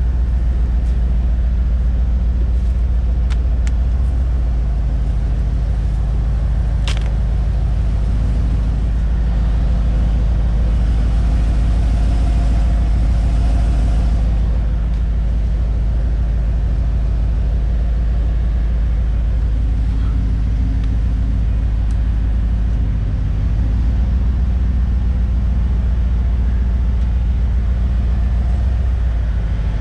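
An engine idling steadily with a low rumble, and a single sharp click about seven seconds in.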